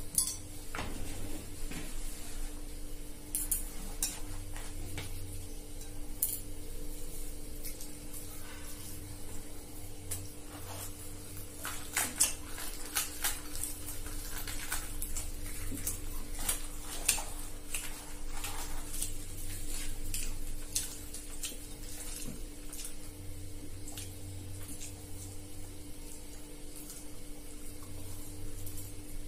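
Eating by hand: luchi (puffed fried bread) being torn and chewed, with scattered small clicks and clinks against plates and glasses, over a steady faint hum.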